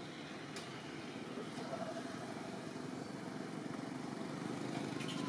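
Steady low rumbling background noise that slowly grows louder, with a faint click about half a second in.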